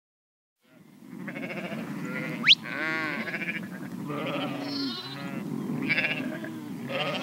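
A herd of goats bleating, several calls overlapping. About two and a half seconds in comes a short, sharp rising squeal, the loudest sound.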